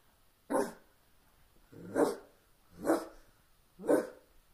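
A woman imitating a dog's bark with her own voice: four short, sharp barks about a second apart.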